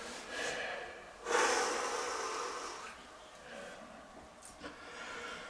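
A man breathing out hard, a long breathy exhale starting about a second in, with weaker short breaths after it: heavy breathing through the burn of an extremely hot sauce.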